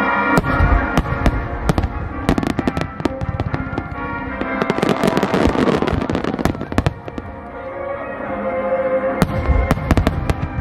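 Large fireworks starmine: a rapid string of shell bursts, with a dense spell of crackling about halfway through and another cluster of heavy bursts near the end, over music playing throughout.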